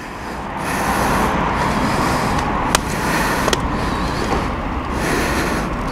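Steady rushing noise of passing street traffic, with two short sharp clicks near the middle.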